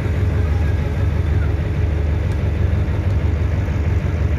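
Boat engine running steadily: a low, even drone with a hiss of water and air above it.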